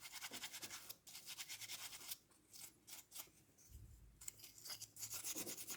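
A paintbrush scrubbing dust from a netbook's cooling fan: a faint, fast scratching of bristles in quick strokes, stopping for about two seconds midway.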